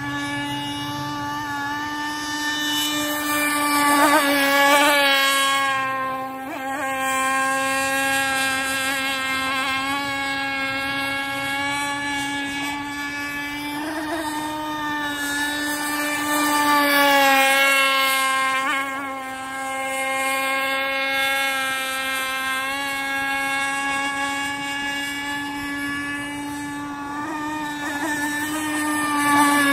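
Gas RC speedboat with a 30.5 cc two-stroke engine running fast across the water, a steady high-pitched buzz. It swells louder three times, the pitch bending as the boat passes close by.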